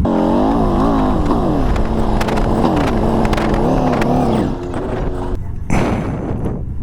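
Motorcycle engine heard from inside the rider's helmet, its engine speed falling and rising, then settling lower about four and a half seconds in. A short rush of noise comes near the end.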